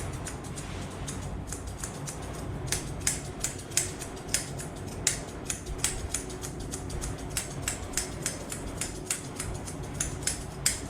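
Grooming scissors snipping a Pomeranian's fur in quick, irregular sharp snips, a few a second, pausing briefly about a second in. A low steady hum runs underneath.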